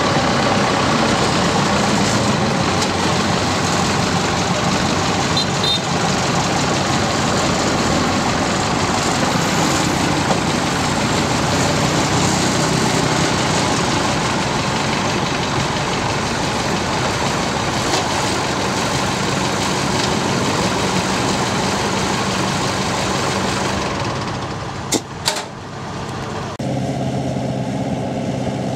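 Diesel engine running steadily and loudly; near the end the sound dips, two sharp clicks are heard, and then a steadier engine drone takes over abruptly.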